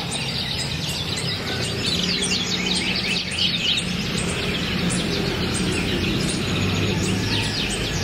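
Morning chorus of birds singing: many quick, high chirps and trills overlapping, with a low steady hum underneath.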